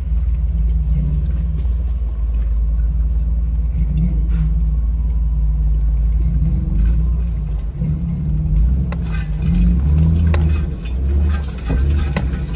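Off-road vehicle's engine running at crawling speed, a steady low rumble heard from on board, which rises and falls from about two-thirds of the way in as the vehicle works over rough ground. Scattered clicks and brushing in the second half, with brush and branches rubbing against the vehicle.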